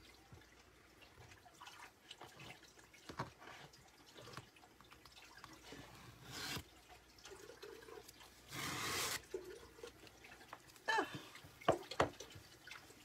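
Adhesive Chalk Couture transfer being handled and peeled off a chalkboard: soft rustles and small taps, with two short sticky peels, the second the loudest.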